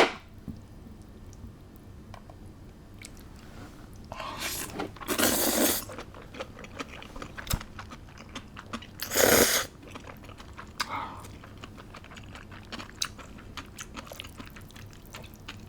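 Close-miked chewing and crunching of spicy noodles with crisp old cucumber (nogak), with many small crunching clicks. Two louder bursts of noise come about four and nine seconds in.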